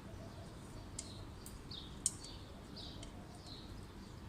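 Small bird chirping repeatedly in short, falling calls, about one a second. A few sharp clicks come through as well, the loudest about two seconds in.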